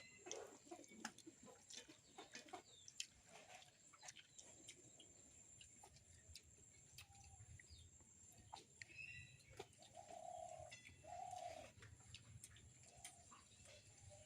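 Near silence: faint scattered clicks, and two short low calls about ten and eleven seconds in.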